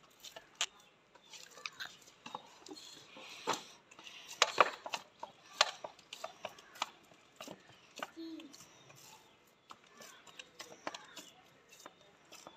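Hands kneading whole-wheat dough in a steel bowl: irregular knocks, taps and slaps of the dough and the bowl, loudest about four to six seconds in.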